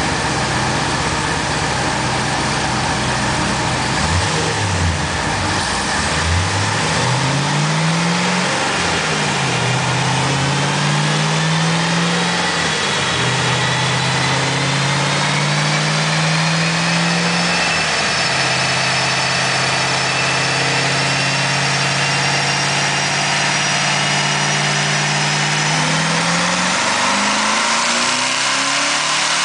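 Twin-turbocharged Corvette Z06 7.0 L V8 running on a chassis dyno at 10 psi boost. The revs climb and drop several times, hold steady, then climb steeply near the end in a hard pull. A high whine rises with speed throughout.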